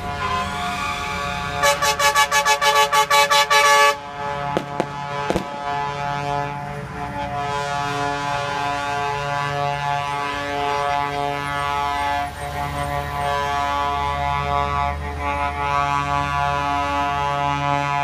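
Bus horns honking in a parade: a rapid string of short toots for a couple of seconds, then horns sounding on and off, the pitch swinging back and forth between two notes about once a second, over traffic noise.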